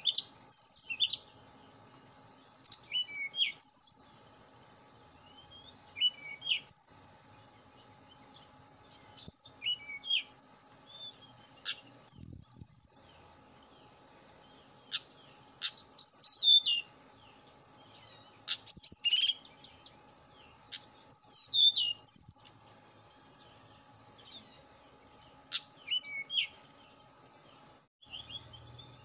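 Tledekan gunung singing: about nine short, high, sweet phrases of quick sliding notes, each about a second long, spaced two to three seconds apart.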